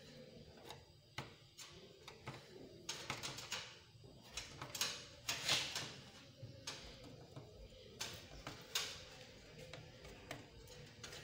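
Pliers and fingers handling a TV's thin sheet-metal backplate while pressing a glued LED backlight strip into place: irregular light clicks and taps with a few short scraping, rubbing sounds.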